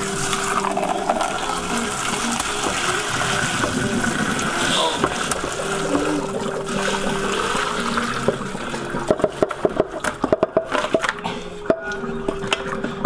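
Hot boiling liquid pouring from a pot into a plastic colander in a kitchen sink: a steady splashing rush. From about nine seconds in, the crawfish, potatoes and orange slices follow and clatter into the colander in quick knocks.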